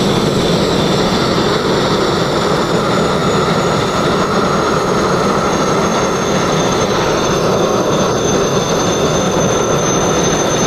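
Sandblasting nozzle firing abrasive grit at a narrowboat's steel rudder, stripping paint, weed and rust back to bare metal: a loud, unbroken hiss of compressed air and grit, with a thin high whistle over it.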